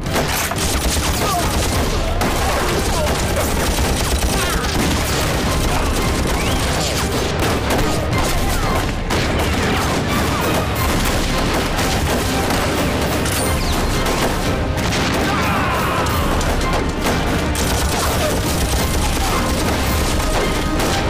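Dense, continuous gunfire from a night gun battle, many shots overlapping, mixed over dramatic score music.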